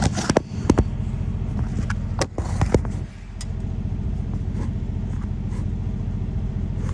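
Skid steer loader's engine idling steadily, with a few sharp metal clanks and knocks in the first three seconds as the foot control linkage is handled.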